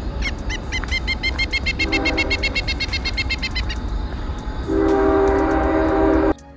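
Train horn sounding a chord of several tones: a short blast about two seconds in and a longer one near the end, over the train's steady low rumble. A rapid run of high chirps, about eight a second, sounds through the first half. All of it cuts off suddenly near the end.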